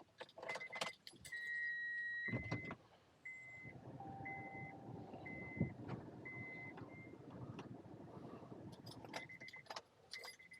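Inside a car: keys jangling, then the car's electronic warning chime beeping repeatedly, short high beeps about once a second. Under the beeps the engine runs with a steady low rumble from about two seconds in, and more rattling clicks follow near the end.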